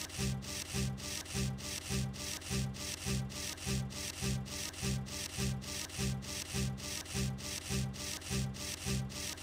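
Nail file rasping back and forth over claws in steady, even strokes, about two to three a second.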